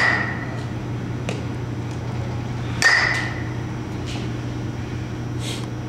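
Baseball bat hitting a pitched ball once, about three seconds in, with a sharp ringing ping that fades over about half a second; the ringing of the previous hit dies away at the start.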